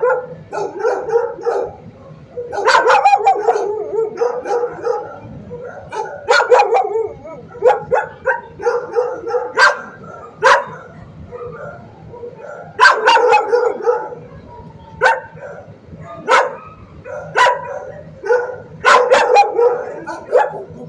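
Dogs in shelter kennels barking in repeated short bouts every second or two, with yipping between the barks.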